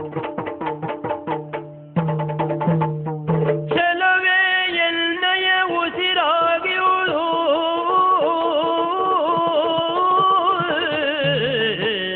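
Yakshagana ensemble music: fast drum strokes, about five a second, over a steady drone. After about four seconds a lead singer takes up a wavering, ornamented melody over the drone.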